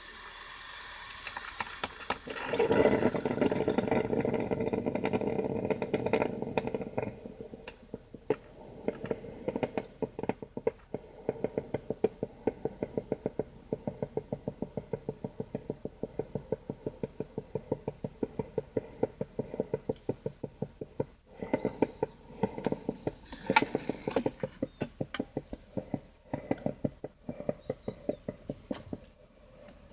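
Braun Type 4085 drip coffee maker gurgling and hissing as it brews. The bubbling is loudest a few seconds in, then settles into a string of quick spurts, about two or three a second, with a brief rise of hiss near the end.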